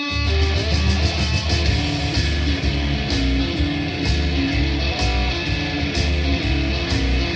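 Live rock band playing the instrumental opening of a gritty, punky blues on electric guitar. Bass and drums come in together right at the start, and the band plays on at a steady beat.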